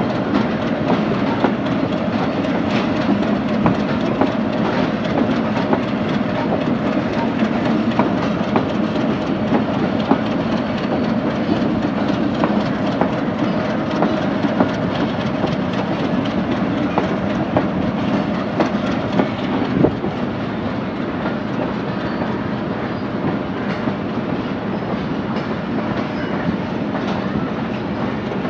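Pakistan Railways express passenger train rolling through the station: a steady rumble with the wheels clicking over the rail joints.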